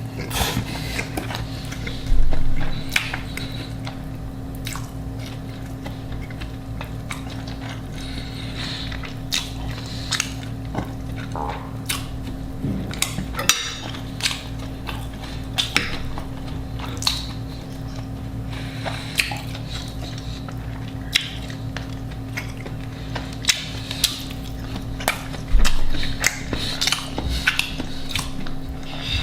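Close-miked eating: irregular crunches, clicks and smacks of food being bitten and chewed, with a couple of louder crunches about two seconds in and near the end. A steady low hum runs underneath.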